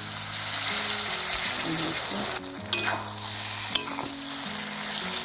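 Rugda mushrooms and chicken sizzling in a kadhai as wet masala paste is stirred in, with a couple of sharp clicks a little past the middle. Faint background music runs underneath.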